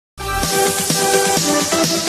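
Electronic intro music that starts suddenly just after the start, a run of short synth chords changing every quarter second or so.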